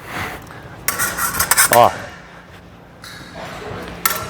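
Steel fencing blades clashing and scraping as the blades are taken and bound: a quick run of sharp metallic clicks about a second in and another single strike near the end, with a brief voiced exclamation in between.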